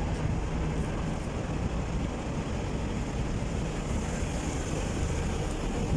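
Steady outdoor street ambience: a low, even rumble of traffic noise with no distinct events.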